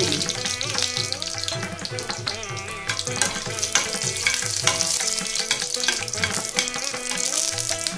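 Hot oil sizzling around cumin seeds, dal and dried red chillies frying in a kadai, with a steel spoon stirring and tapping the pan now and then. Soft background music with a stepping bass line runs underneath.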